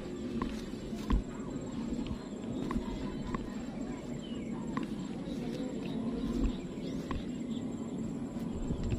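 Rural outdoor ambience: a steady low rumble with scattered short clicks and a few faint bird chirps.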